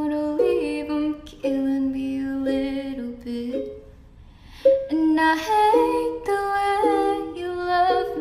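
Background music: a slow, gentle song with long held melodic notes, breaking off briefly about halfway through.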